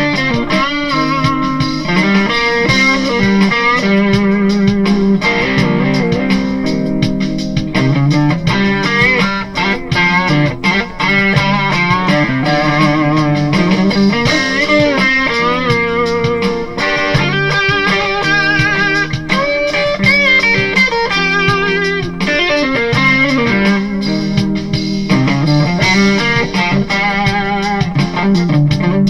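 Kiesel Delos electric guitar played through a PRS HDRX 20 amplifier: an improvised jam of sustained lead notes with wide vibrato and bends over held lower notes.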